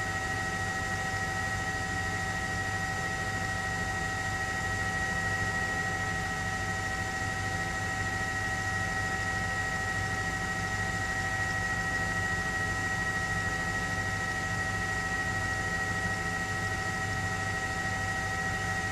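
Steady helicopter cabin noise: a constant high whine over a low hum, unchanging.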